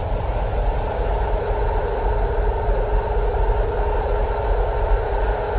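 Science-fiction spaceship hull-repair sound effect: a steady, dense rumble and hiss, with a steady hum rising out of it about a second and a half in.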